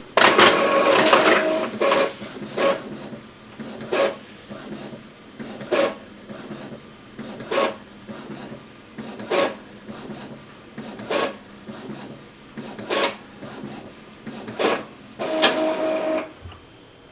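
Epson EcoTank ET-2720 inkjet printer printing an alignment test page. It opens with a whir of paper feeding in, then a short knock about every two seconds as the print head carriage makes each pass. Near the end comes another whir of paper feed.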